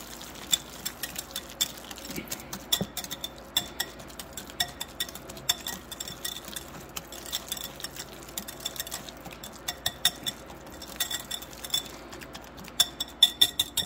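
Wire whisk clinking and scraping against a glass mixing bowl as it mashes and mixes avocado, in quick irregular strokes, with a run of louder clinks near the end.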